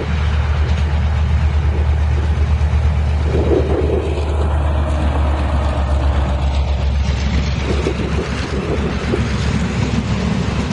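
Railway train at a station: a locomotive's steady low drone with rail and wheel noise. The drone loosens into a more uneven rumble about two-thirds of the way through.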